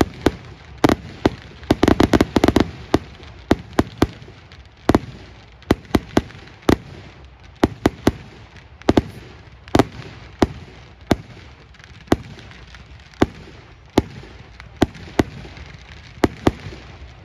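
Aerial fireworks firing: a run of sharp bangs, roughly one or two a second, with a quick cluster of reports about two seconds in.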